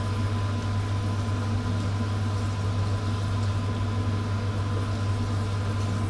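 Dried fish deep-frying in a wok, the oil sizzling lightly now that the fish has lost its moisture and is nearly crisp, over a steady low hum.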